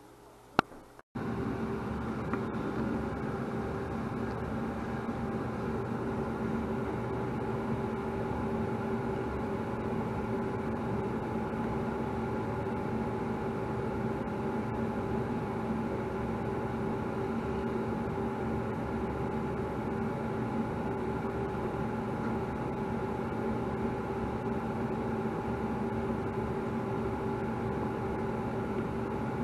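A click, then from about a second in a steady machine hum with several fixed tones, unchanging throughout.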